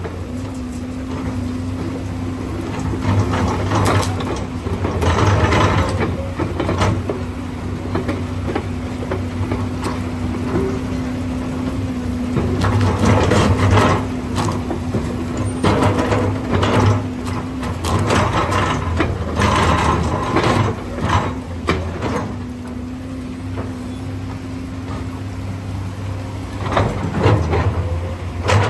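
SANY 21.9-ton hydraulic crawler excavator running under load, with a low diesel rumble and a steady hydraulic whine that drops out now and then as the boom and bucket lever one track off the ground and set it back down. Irregular metallic clanks and knocks come from the tracks and linkage.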